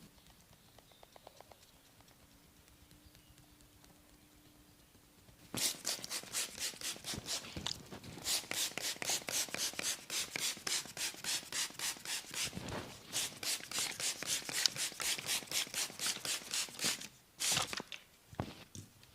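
A barber's hands massaging a client's head: a fast, even run of short scratchy strokes on hair and skin, several a second. It starts about five seconds in after a quiet stretch and stops shortly before the end.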